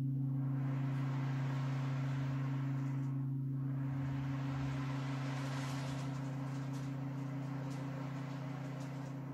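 Quartz crystal singing bowls ringing in a steady low drone that fades slowly. Over it, the beads of an ocean drum roll in a hissing wash that swells and ebbs twice.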